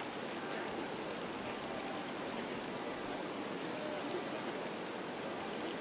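Steady rain falling on shallow floodwater covering a street: a continuous, even hiss of drops hitting the water.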